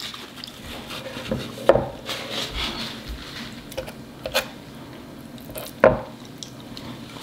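Eating and table-handling sounds: a fork and fingers working food on a wooden board, with a few sharp clicks of cutlery, the loudest about six seconds in.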